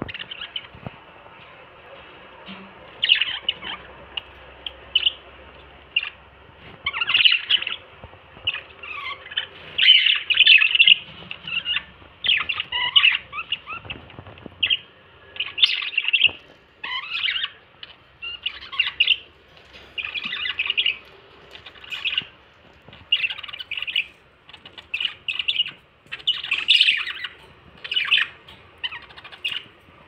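Pet budgerigars and a cockatiel chirping and squawking in short, frequent calls, about one a second, some with quick rising or falling sweeps.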